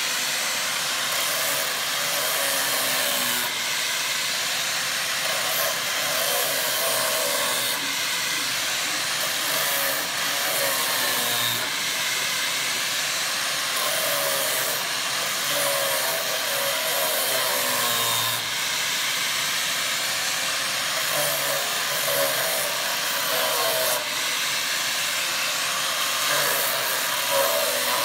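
Handheld angle grinder with a sanding disc running against the wooden end panel of a cabinet: a steady, loud hiss of abrasive on wood, with the motor's pitch dipping and rising now and then as the disc is pressed and eased.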